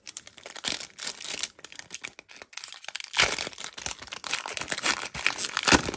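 Foil Pokémon booster pack wrapper crinkling and crackling as it is torn open by hand, with louder rips about three seconds in and near the end.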